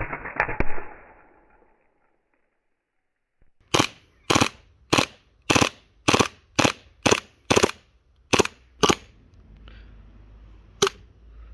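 Action Army AAP01 gas-blowback airsoft pistol firing about ten sharp shots at roughly two a second with uneven gaps, then one more after a pause, as its gas runs out. It opens with a loud burst of noise that fades over about a second and a half before a short pause.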